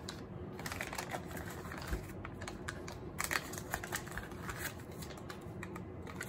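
Foil butter wrapper crinkling as it is folded and rolled by hand around a block of butter, with irregular light crackles and taps.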